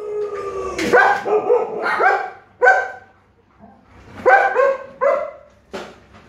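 Alaskan malamutes barking and yipping: a run of short, pitched calls in two bursts, with a pause of about a second in the middle.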